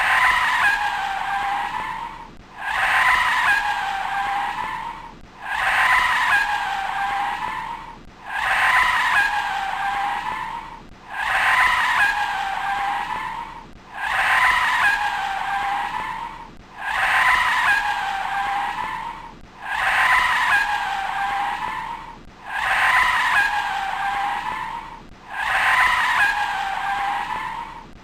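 A short car sound effect looped about every three seconds. Each repeat starts suddenly with a high-pitched wail that dips and rises in pitch and then fades, with little low end. It is either a flat-six engine revving or tyres squealing.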